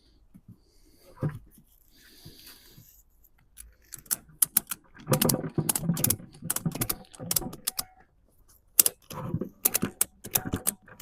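Ratchet strap being cranked tight around a flat tire, its ratchet clicking in quick runs from about four seconds in, after some quieter handling. The tightening squeezes the middle of the tread to force the loose beads out onto the rim.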